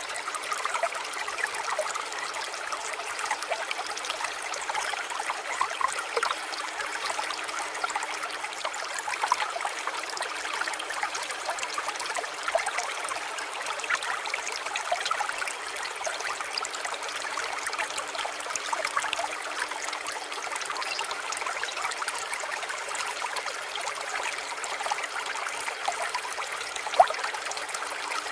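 Water trickling steadily over stones, a small stream or garden water feature, with one sharper click near the end.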